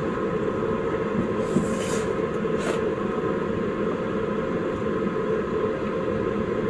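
Steady low machine hum filling a camper van's cabin, with a couple of short eating and tableware noises at the table about two seconds in.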